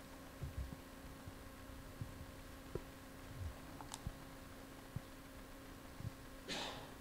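Quiet room tone in a meeting hall: a steady low electrical hum with scattered soft knocks and a few small clicks, and a brief hiss near the end.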